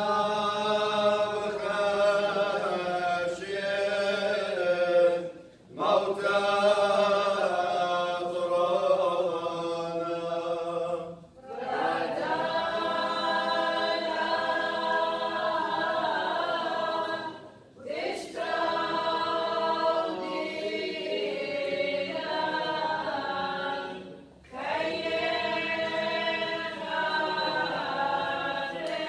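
A choir singing an Assyrian Church of the East liturgical chant without accompaniment. It comes in phrases about six seconds long, each ending in a short pause for breath.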